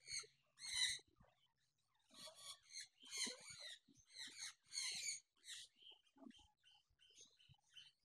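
Faint, harsh calls of caged parrots: a string of short squawks, with softer chirps in the last couple of seconds.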